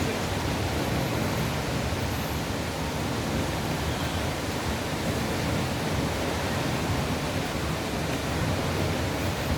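Takapala waterfall: the steady, unbroken rush of falling water.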